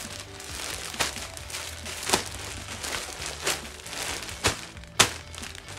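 Clear plastic packaging bags crinkling as they are handled, with a run of sharp crackles about a second apart, the loudest near the end.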